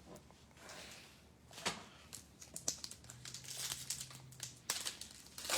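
Trading-card pack wrappers crinkling as they are handled and opened, in several short rustles, the loudest near the end.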